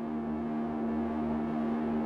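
Ambient opening music: a sustained drone on one low pitch with shimmering overtones above it, holding steady.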